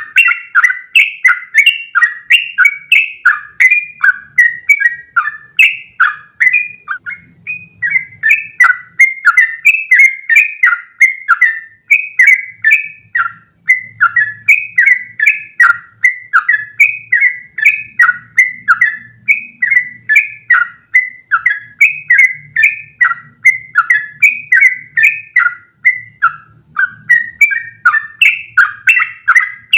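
Sooty-headed bulbul (trucukan) singing a long unbroken run of short chirping notes, about three a second, used as a tutor song to teach captive bulbuls long rapid runs.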